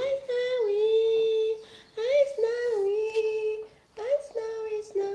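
A high voice singing a few long held notes, each sliding up into the pitch, with short breaks between them.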